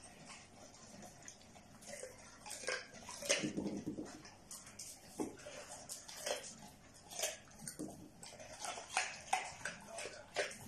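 A pit bull sniffing and snuffling at a carrot on a tile floor, with irregular short sniffs and light knocks as the carrot is nudged across the tile.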